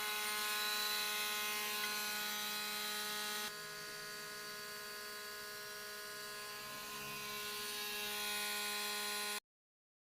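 Electric woodworking power tool running at a steady speed: a motor whine of several steady tones over a hiss. The sound changes abruptly about three and a half seconds in and cuts off suddenly near the end.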